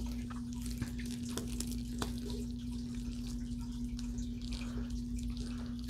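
Faint handling of a fabric-and-leather handbag being turned on carpet, with a few light clicks, over a steady low hum.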